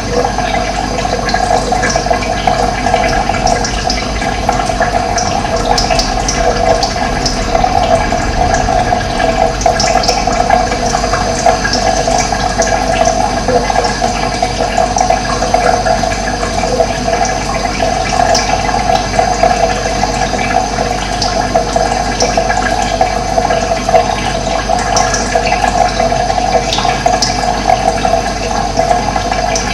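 Running water flowing steadily, a continuous rushing with no pauses.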